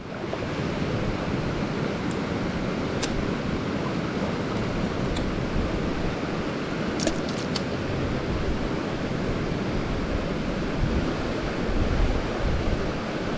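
Mountain stream water rushing steadily over rocks, with a few sharp clicks and a quick cluster of them about halfway through.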